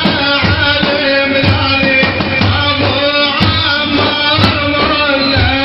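Sufi mawlid chant: frame drums beat a steady rhythm of about two strokes a second under a male voice singing a religious praise song.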